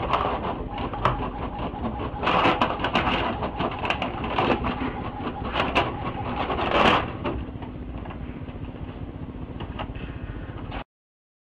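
A printer running as it feeds paper out, its mechanism whirring and clicking, with paper rustling as a cat paws at the sheets. There is a louder rustle near seven seconds, then a steadier, quieter whir that cuts off suddenly near the end.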